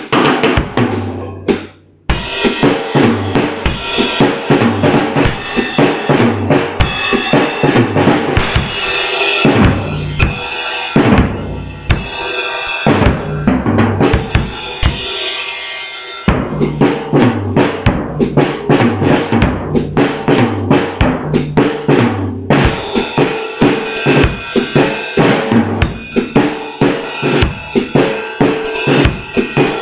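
Acoustic drum kit played as a jazz groove in 5/4: steady bass drum and snare strokes under ringing cymbals, with a brief drop-out about two seconds in.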